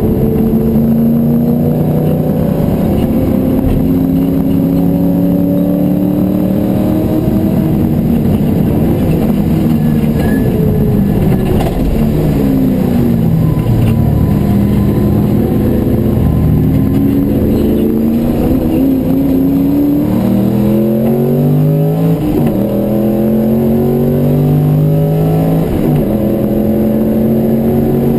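Porsche 928's V8 engine under race load, heard from inside the cabin. The revs climb slowly, fall away about halfway through as the car slows for a corner, then climb again with several sudden changes in pitch from gear shifts.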